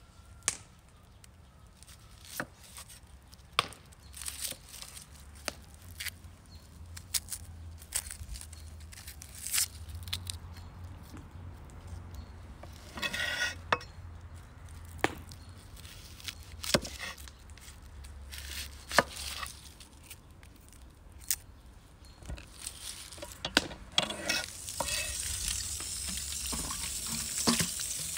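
Kitchen knife cutting red onions on a thick wooden chopping board: sharp, irregular knocks of the blade striking the board. Near the end, water starts pouring over onions in a stainless steel colander.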